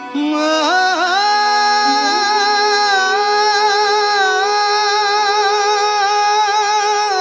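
Background music: a singer holds one long note with a slight waver over a steady drone.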